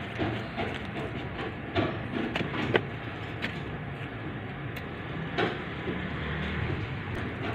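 Lemon tree leaves and branches rustling as they are handled close to the microphone, with a few sharp clicks over a steady background rumble.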